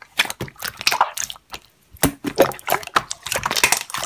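Slime being squished and poked by hand, a run of irregular wet clicking and squelching pops with a brief lull about a second and a half in.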